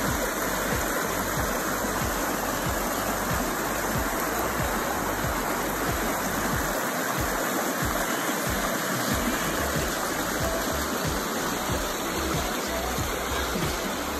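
Shallow creek rushing over rocks: a steady, even water noise.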